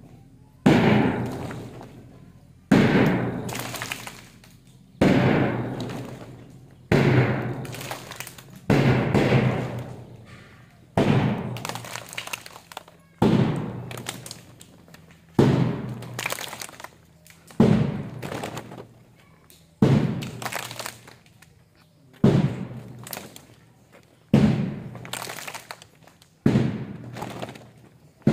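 A loud struck beat about every two seconds, around a dozen in all. Each hits suddenly and rings away over a second or so, keeping time for a group exercise drill.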